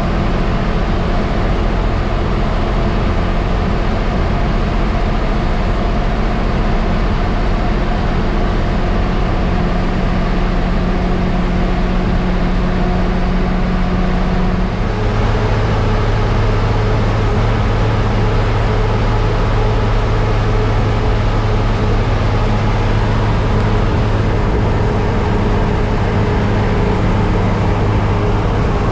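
MSRTC bus's diesel engine running, with road noise, heard from inside the bus under way. The engine note steps down to a lower pitch about halfway through.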